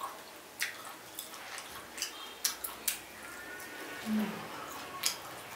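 Close-up eating of pickled chicken feet: chewing and crunching of skin and cartilage, heard as a string of sharp, irregular clicks. A short low hum-like sound comes about four seconds in.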